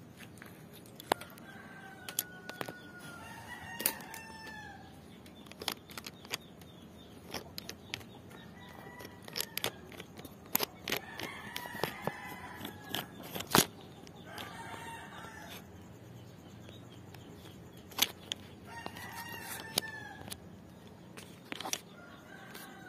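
Roosters crowing repeatedly, each crow a drawn-out call that bends in pitch. Sharp knocks and clicks fall between the crows, one loud knock about halfway through.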